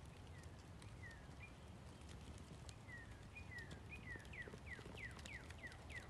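A bird singing faintly: short whistled notes slurring downward, a few spaced out at first, then a quickening run of steeper down-slurs through the second half, over a low steady background hiss.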